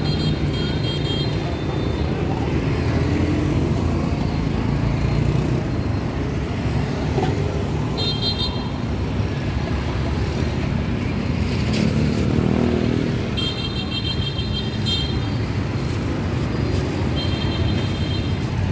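Steady motorbike and car traffic, with short high-pitched horn toots four times.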